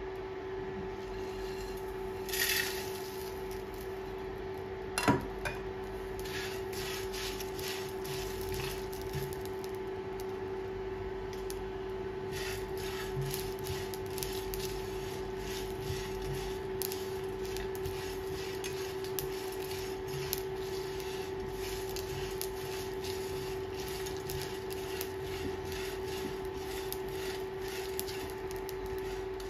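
Whole spices being dry-roasted in a nonstick frying pan and stirred with a silicone spatula: soft scraping and many small clicks of seeds and chillies against the pan, with a short rustling burst about two seconds in and a single sharp knock about five seconds in, over a steady hum.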